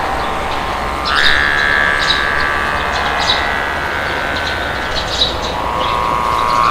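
Steady wind noise with small birds chirping over it again and again. A high whistling tone rises suddenly about a second in and holds for a few seconds, and a lower one comes in near the end.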